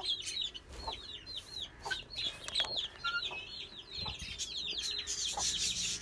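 Young chicks peeping in a steady run of short, high calls, about four a second, with a hen clucking among them and a few light knocks.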